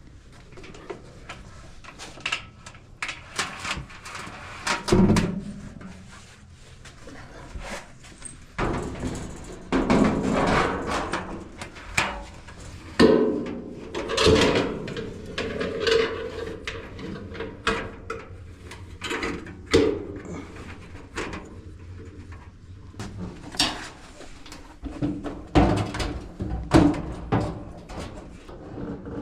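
Irregular knocks, clunks and scraping of a Whirlpool clothes dryer's metal cabinet parts as they are handled and fitted back together during reassembly.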